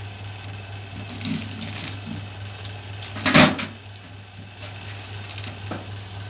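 Steady low electrical hum with a few light knocks of handling, and one louder clatter about three and a half seconds in.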